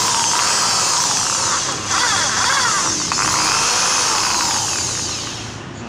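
Hyundai HDED108 corded electric drill running free with no load, its motor whine gliding up and down in pitch as the trigger varies the speed. The sound dips briefly just under two seconds in and again near three seconds, and runs down near the end.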